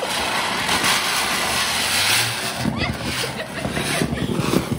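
A bhuichakra ground-spinner firework whirling on the floor, giving a steady rushing hiss as it throws out sparks. The hiss stops at the very end as the spinner burns out.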